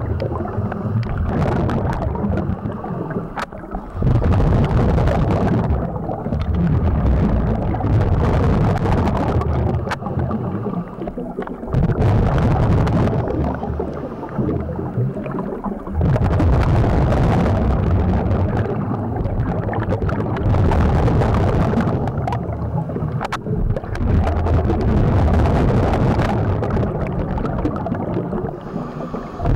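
Underwater sound of a scuba diver breathing through a regulator: exhaled bubbles rumble and gurgle in long swells every few seconds, with quieter gaps between them, and a few sharp clicks.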